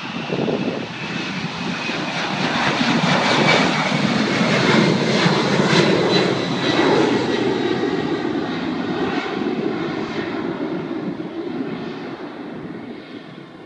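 A Japan Airlines Boeing 767-300ER's twin General Electric CF6-80C2 turbofans at takeoff thrust as the jet lifts off and climbs away: a loud jet roar with a high whine that slides slowly down in pitch. It builds to its loudest around the middle, then fades toward the end.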